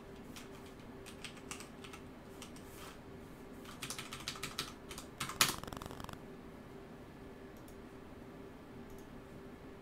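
Scattered keystrokes and clicks on a computer keyboard, with a quicker run of typing about four to six seconds in. A faint steady hum sits underneath.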